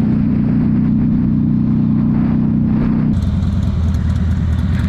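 Motorcycle engine running steadily under way. About three seconds in the sound changes abruptly to a lower, steady engine note.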